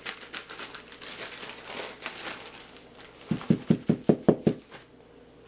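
Plastic zip-top bag of flour crinkling and rustling as chicken pieces are shaken inside it to coat them. Then comes a quick run of about seven dull thumps as the bag is tapped to knock excess flour off the chicken.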